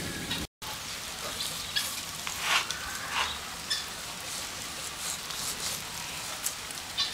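Steak and its fat sizzling over a charcoal barbecue, with scattered crackles and pops. The sound cuts out for a moment about half a second in.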